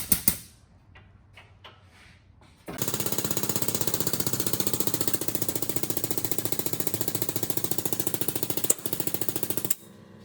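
Pneumatic shop tool hammering rapidly and evenly: a short burst at the start, then after a pause of about two seconds a long unbroken run of rapid strokes, with one sharp click near the end before it stops.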